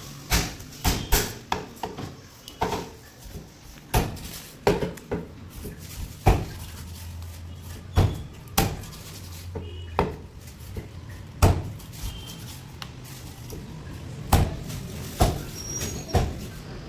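A knife chopping through a barracuda on a cutting block: sharp, irregular knocks, roughly one a second.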